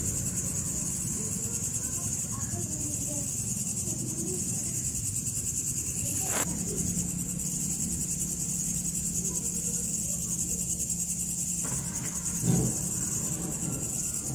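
Crickets chirring in a steady, high-pitched night chorus, over a low background hum. There is a brief click about six seconds in and a short low thump near the end.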